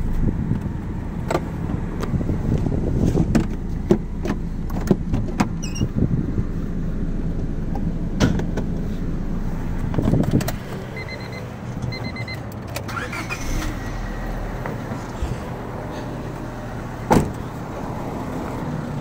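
A Honda Civic's four-cylinder engine idling, running without engine oil, heard first from the cabin and then from outside, under a string of clicks and knocks from handling the car. Two short double beeps sound about eleven and twelve seconds in, and one sharp loud knock comes near the end.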